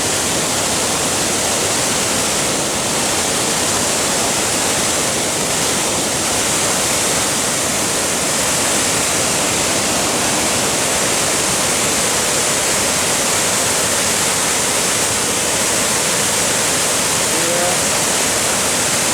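Dent de Man waterfall pouring down, a loud, even, unbroken rush of falling water.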